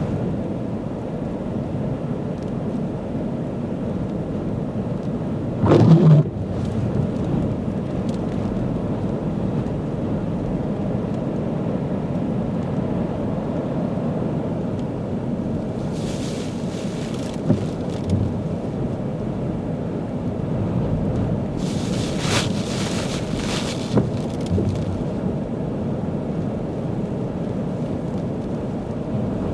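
Storm-force wind buffeting the microphone in a steady low rumble, with a loud sudden blast about six seconds in and two hissing surges later on.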